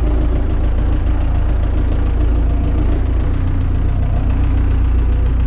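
Renault 651 tractor's diesel engine running steadily at low revs, a deep even rumble.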